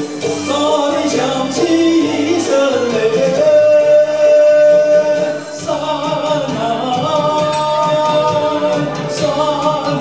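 A man singing into a microphone over backing music, holding long notes about halfway through and again near the end.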